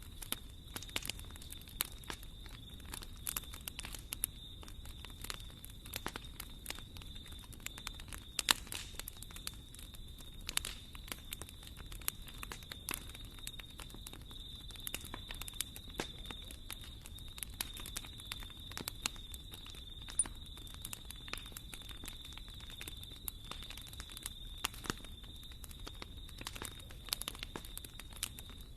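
Wood fire burning in a fireplace, crackling with irregular pops and snaps over a low steady rumble; one louder pop about eight seconds in.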